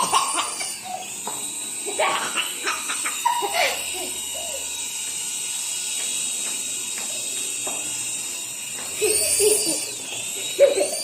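A toy helicopter's small electric motor whining steadily at a high pitch, with a child's laughter and voices over it, loudest a couple of seconds in and again near the end.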